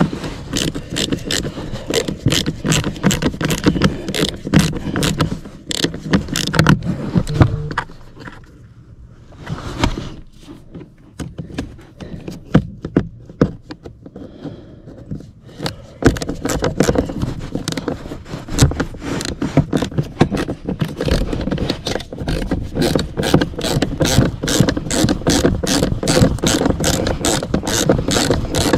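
Hand ratchet clicking as a 7/32 socket on an extension backs out the screws holding a blower motor resistor. The clicks are dense at first, sparse and quieter for several seconds in the middle, then rapid and even.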